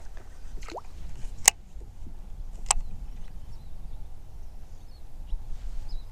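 Two sharp clicks about a second apart over a low, steady outdoor rumble.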